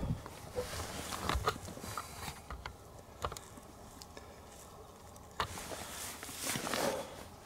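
Faint scattered rustling and small clicks and knocks, with a louder stretch of rustling about five and a half seconds in.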